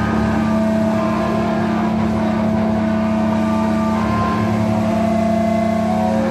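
Loud distorted electric guitar and bass amplifiers holding one steady, droning chord, with no drum hits.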